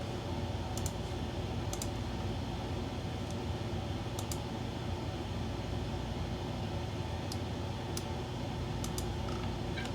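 Sparse keystrokes on a computer keyboard, single and paired clicks a second or more apart, over a steady low hum.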